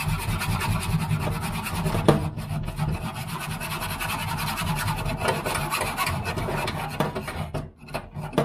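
Hacksaw sawing through the old kitchen tap's supply pipe in steady strokes, stopping shortly before the end.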